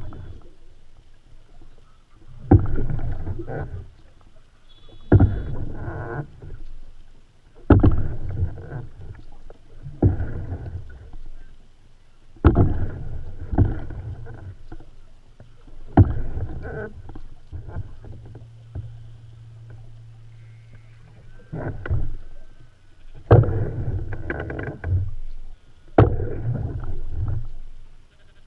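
Open canoe paddle strokes: each stroke starts with a sharp tap and is followed by about a second of water swishing and gurgling, repeating roughly every two and a half seconds, with a longer pause about halfway through.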